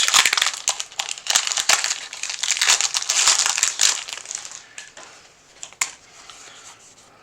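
Foil wrapper of a Pokémon TCG booster pack crinkling loudly as it is torn open and handled for about four and a half seconds, followed by a few scattered softer crackles and clicks.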